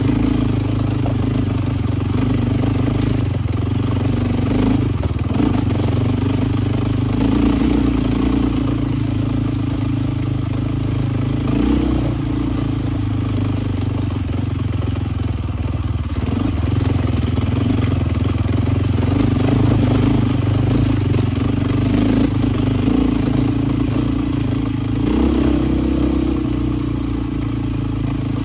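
Dual-sport motorcycle engine running while the bike is ridden. The note is steady, rising and falling a little every few seconds with the throttle.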